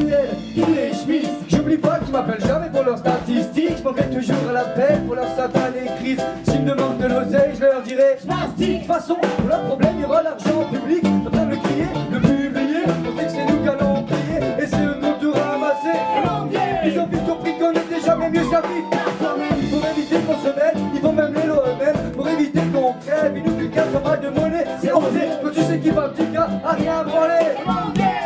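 Live amplified band playing an upbeat song, with a steady drum-kit beat, electric guitar, bass and accordion, and voices singing over it.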